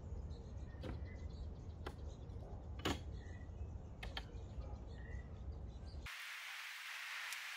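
Outdoor background noise: a steady low rumble with a few sharp clicks and short faint chirps. About six seconds in it cuts abruptly to a steady hiss.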